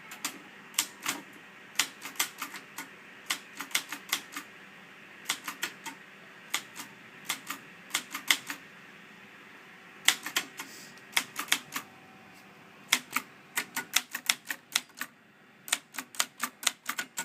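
Typewriter keys being struck in irregular clusters of a few keystrokes with short pauses between them. Near the end the strikes come faster and closer together.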